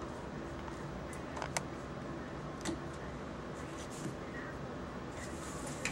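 A few short clicks and knocks, about four spread out, over a steady background hiss: a screw being driven by hand with a Phillips-head screwdriver.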